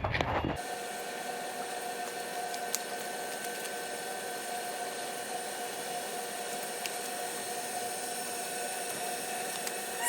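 A steady machine hum and hiss with a constant whine, starting suddenly about half a second in.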